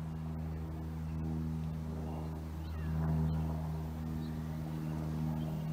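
Airplane engine overhead: a steady, low droning hum with even overtones, swelling a little about halfway through.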